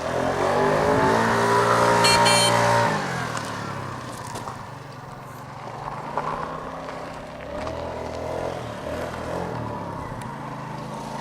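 Small four-stroke 49cc scooter engine revving as the scooter is ridden, its pitch climbing and then dropping away about three seconds in. A short high beep of the horn sounds near the peak. After that the engine runs quieter, rising and falling again.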